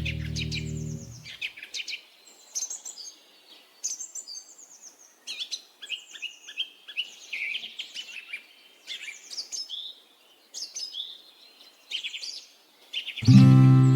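Small songbirds chirping and trilling in quick, varied phrases, with many short calls close together. A held music chord fades out in the first second, and another swells in near the end.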